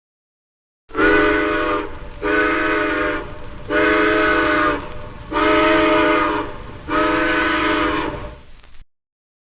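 Multi-chime train whistle sounding five blasts, each about a second long with short gaps, a chord of several notes, over a steady low rumble; the last blast trails off.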